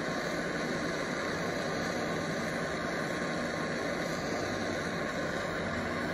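Handheld propane torch burning with a steady, even hiss as its flame heats a copper pipe joint.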